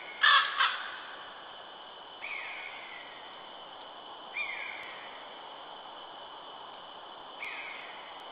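A bird calling: two loud calls just after the start, then three shorter calls that fall in pitch, spaced about two to three seconds apart, over a steady faint high-pitched whine.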